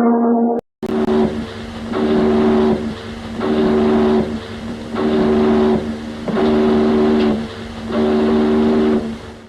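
Ship's horn sounding six short blasts about a second apart, each a chord of several pitches sounding together. Just before them, a different held horn note cuts off abruptly about half a second in.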